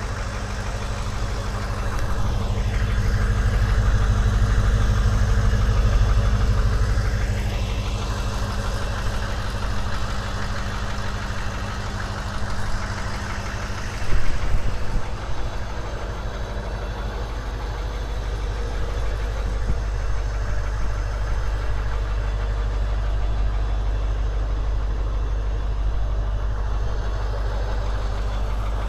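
AM General 6.5-litre V8 diesel in an M998 Humvee idling steadily, with a brief louder bump about halfway through.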